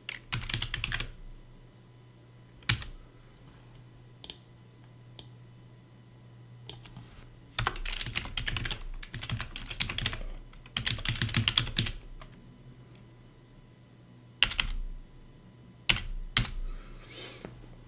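Typing on a computer keyboard: bursts of rapid keystrokes with pauses between, and single key presses in the gaps, about three seconds in and again near fourteen and sixteen seconds.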